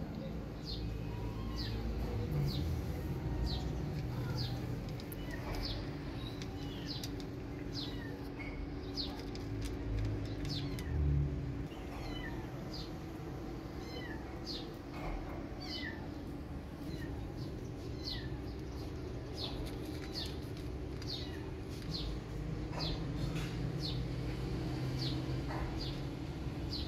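Calico kitten mewing over and over: short, high-pitched mews about once a second. A dull low thump sounds about midway.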